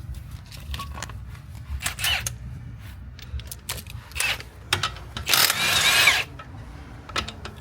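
Impact wrench loosening wheel lug bolts. It runs in short bursts, then a longer run of about a second near the end, its whine rising and falling.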